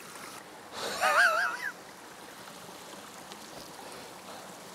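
Shallow stream trickling steadily as a bucket is rinsed in it, with a short, wavering groan of disgust from a man about a second in.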